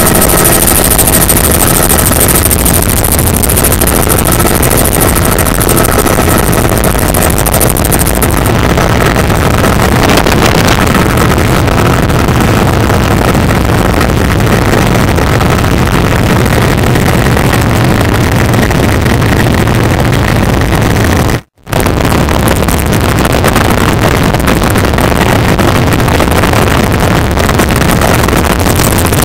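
Helicopter engine and rotor noise heard from inside the cabin, loud and steady, with a high whine over it for the first several seconds. The sound drops out completely for a split second about two-thirds of the way through.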